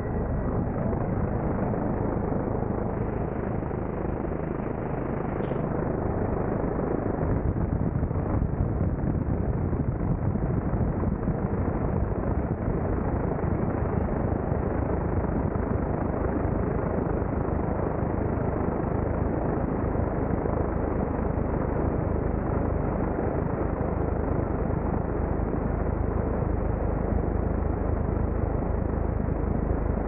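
Helicopter in hovering flight heard from its open side door: a steady, unbroken noise from the rotors and engine, mixed with wind on the microphone.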